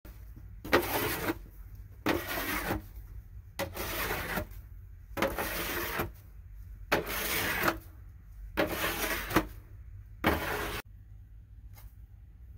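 Plastic snow shovel scraping and pushing through snow, seven strokes about a second and a half apart, each a short scraping rush.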